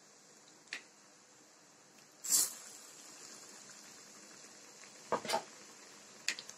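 Batter-dipped pumpkin flowers deep-frying in hot oil in a steel pan, a faint steady sizzle. A few short noises break in, the loudest about two seconds in.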